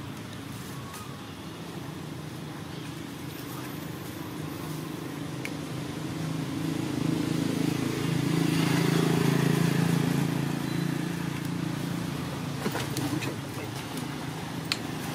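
A passing motor vehicle's low engine hum, building slowly to its loudest about nine seconds in, then fading; a few light clicks near the end.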